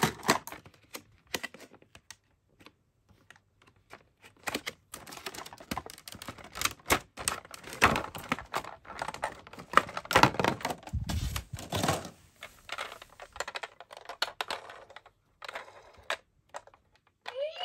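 Stiff plastic blister packaging crackling and clicking as it is pried open by hand and a toy ambulance is worked out of it. Right at the end the toy's electronic siren starts with a rising tone.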